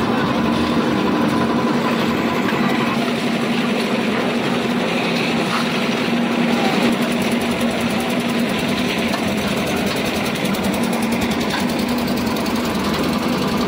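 Concrete mixer machine's engine running steadily under load, with the mixing drum turning, a constant mechanical drone and clatter.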